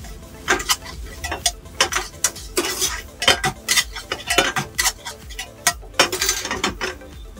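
Metal spatula clanking and scraping against a wok as egg fried rice is stirred and tossed: irregular sharp clanks, about three a second.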